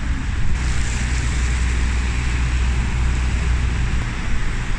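Steady street noise of traffic on wet roads, with wind rumbling on the microphone.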